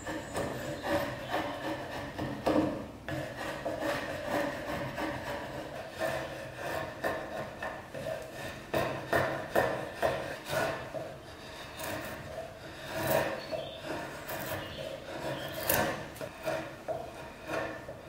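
A steel blade scraped along old, weathered wood, stroke after stroke at an uneven pace, shaving off the grey surface in thin curls: a rough, rasping scrape with each pass.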